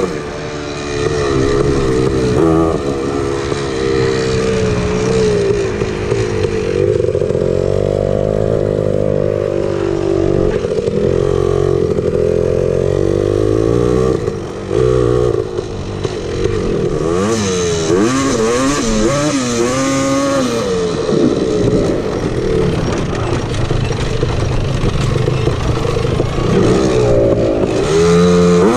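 Honda TRX250R's two-stroke single-cylinder engine being ridden hard, its pitch rising and falling again and again as the throttle is opened and closed.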